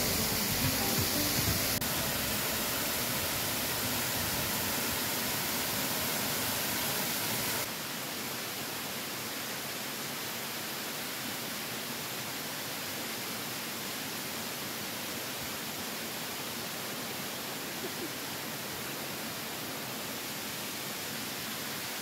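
Waterfall pouring onto rock, a steady rushing hiss of falling water that drops a step in level about eight seconds in.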